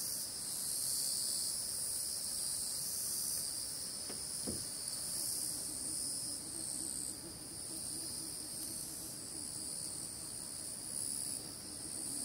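Steady, high-pitched chorus of insects shrilling, swelling and easing slightly, with two faint clicks about four seconds in.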